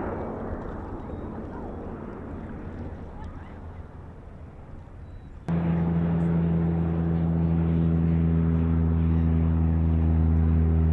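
A rushing noise that fades over the first five seconds, then a sudden cut to a loud, steady, low-pitched engine hum.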